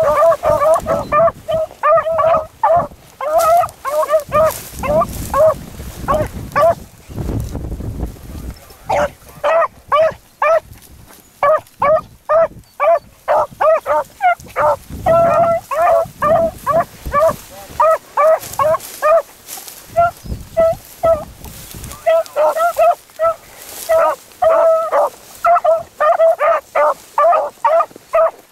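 Beagles baying in quick, repeated short notes, the cry hounds give while running a rabbit's scent. The baying pauses for a few seconds about a quarter of the way in, then picks up again.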